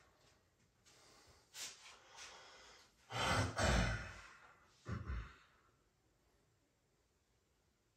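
A person exhaling heavily: a long, loud sigh about three seconds in, then a shorter breath out about a second later.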